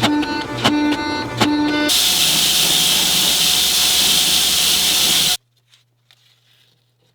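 Plucked-string music with drum hits, cut off about two seconds in by a loud steady hiss that stops abruptly after about three and a half seconds.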